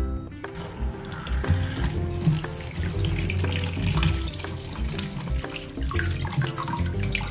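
Kitchen tap running into a plastic colander in a stainless steel sink, the water splashing over potatoes as they are scrubbed by hand. Background music plays throughout.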